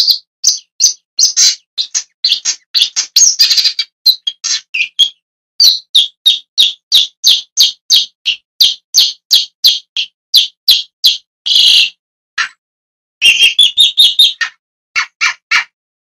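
Long-tailed shrike calling: a long run of short, harsh notes, about two to three a second, broken by brief pauses about five seconds in and about twelve seconds in.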